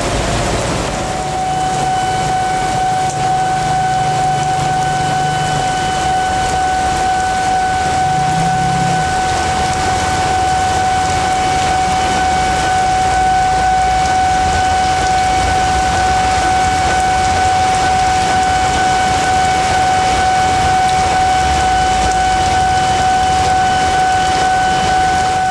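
Heavy rain pouring down in a steady hiss. A steady high-pitched tone with overtones sounds without a break over it, with a low rumble passing underneath a few seconds in.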